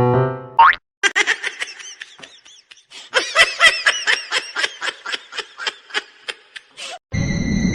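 Rapid, high-pitched giggling laughter in many short bursts, starting about a second in and stopping shortly before the end. Piano notes fade out just before it, and a steady hiss with a thin high tone starts near the end.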